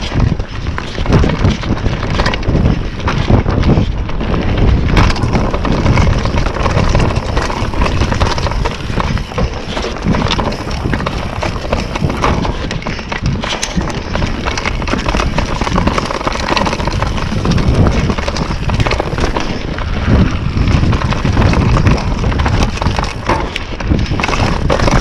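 YT Capra mountain bike riding fast down a dirt forest trail: a continuous low rumble of tyres and wind on the camera microphone, broken by frequent rattles and knocks as the bike hits bumps, roots and rocks.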